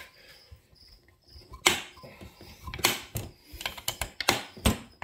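Hex driver clicking and tapping in the crankcase screws of a Husqvarna 266XP chainsaw as the case halves are cinched together over a tight crank bearing. It is a run of irregular sharp clicks starting a little under two seconds in.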